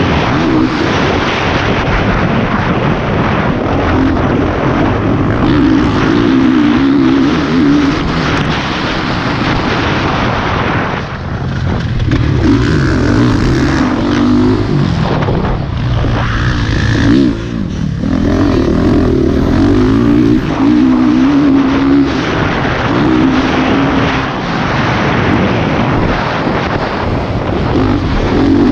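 Motocross bike engine revving up and falling back as it is ridden hard around a dirt track, with heavy wind noise on the microphone. The engine drops off briefly twice, about 11 and 17 seconds in.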